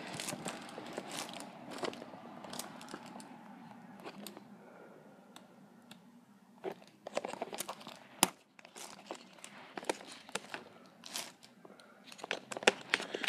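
Hard plastic organizer box being handled and opened: its latches and lid click and the trays knock and rattle, with irregular sharp clicks, the loudest about eight seconds in and again near the end.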